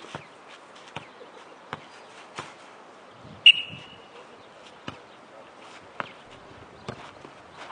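Short, dull knocks of a football being kicked and bouncing on a clay court, about one every second. About three and a half seconds in comes one much louder, sharper hit with a brief ring.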